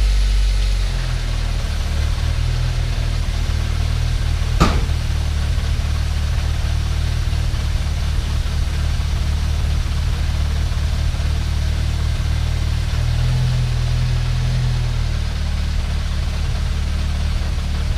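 Turbocharged Nissan GA16DE 1.6-litre four-cylinder idling steadily, just after its first start since the turbo install. The idle settles down in the first second. There is one sharp click about four and a half seconds in.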